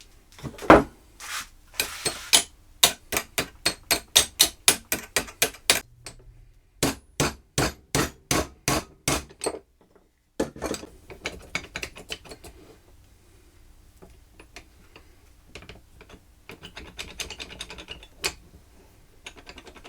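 Hammer tapping on the metal parts of a quick-release woodworking vise, a quick run of sharp strikes about three a second, broken off and started again; then quieter scraping and clicking of the vise parts being worked.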